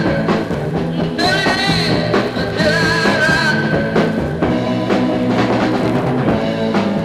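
Intro music: a rock song with drum kit and singing.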